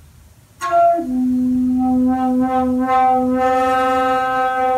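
A horn-like wind instrument blown in one long held note. It comes in suddenly about half a second in, starts a little higher, drops to a lower pitch and holds it steadily.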